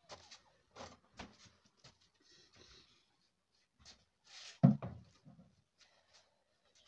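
Light knocks and clatter of kitchenware being moved and set down, with a louder knock and thud about four and a half seconds in as a plastic basin is put down.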